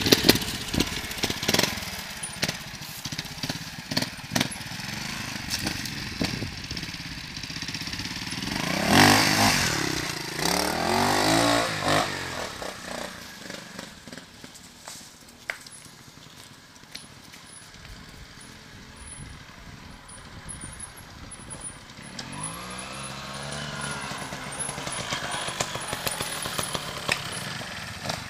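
A Beta Evo 4T four-stroke trials motorcycle engine revving up and down in short bursts. It is loudest about nine to twelve seconds in, and the revving comes again around twenty-three seconds in. Sharp clicks and knocks run throughout.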